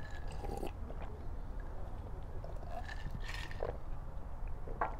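A man eating and drinking: soft chewing and swallowing sounds with a few brief small noises, over a low steady rumble.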